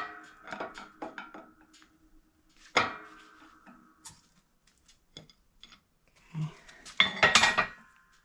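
Metal tool parts of a ball joint press and a socket clanking against each other as they are handled. There is a sharp clank at the start and another about three seconds in, each leaving a short metallic ring. Scattered lighter clicks fall between them, and a quick run of clanks comes near the end.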